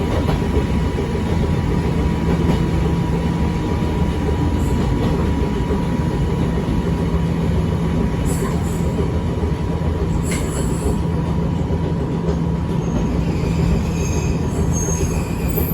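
Echizen Railway 5001-series railcar running along the track, heard from inside: a steady low rumble with a faint constant hum. Short high-pitched wheel squeals come in a little after halfway and again near the end.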